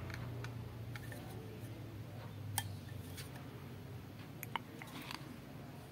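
Small 4-inch speaker drivers being handled and turned over, their pressed-metal frames and magnets giving a few sharp clicks and taps. A low steady hum underneath fades out partway through.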